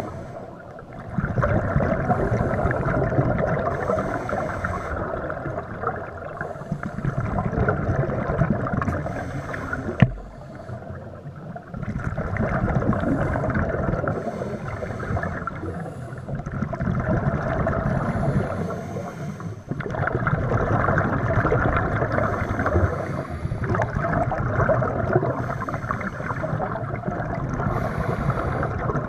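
Scuba regulator exhaust bubbles rushing out in long bursts, broken by short pauses for the diver's inhalations, heard underwater through the camera housing. There is a single sharp click about ten seconds in.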